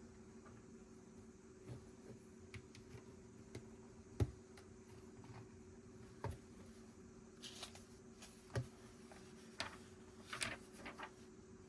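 Plastic Lego pieces being handled and pressed together: scattered sharp clicks, the loudest about four seconds in, then a run of light clicking and rattling in the second half, over a faint steady hum.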